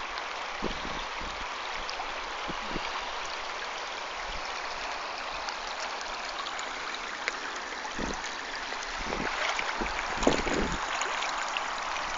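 Fast-flowing floodwater running across a field, a steady rushing hiss of moving water. A few short low bumps come in during the second half.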